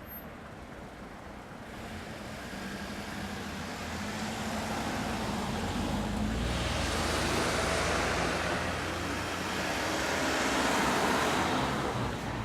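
A passing vehicle: a rushing noise with a low rumble that builds over several seconds, peaks twice, then begins to ease.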